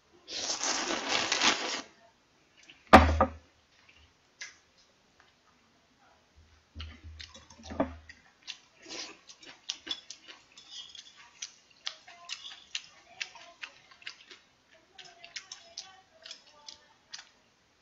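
Close-up mukbang eating sounds: clam kalguksu noodles slurped loudly for about two seconds, a sharp knock about three seconds in, then a long run of small wet chewing clicks.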